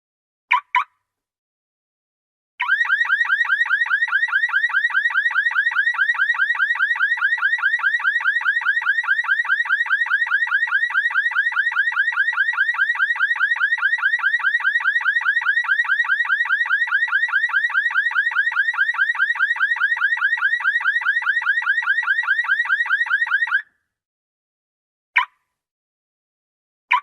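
Car alarm siren going off: a short chirp, then a fast rising warble repeating many times a second for about twenty seconds, cutting off suddenly, followed by single short chirps near the end.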